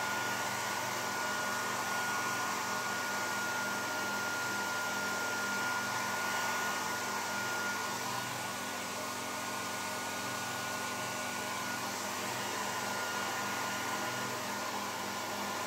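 Compact travel hair dryer running steadily at medium speed, blowing through a kitchen colander fitted over its nozzle as a diffuser: an even rush of air with a thin high whine and a low motor hum.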